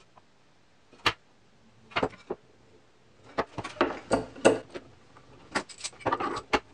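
Thin resawn oak boards knocking and clacking against each other and the workbench as they are picked up, set down and lined up for gluing. There is a single sharp knock about a second in, a couple more near two seconds, then a run of irregular knocks and taps through the second half.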